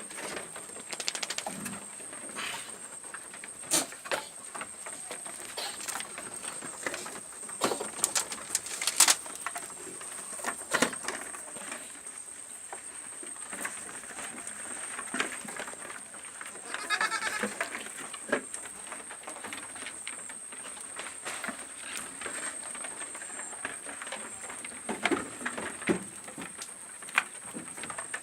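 Goats bleating, with scattered sharp clicks and knocks in between and a steady high whine underneath.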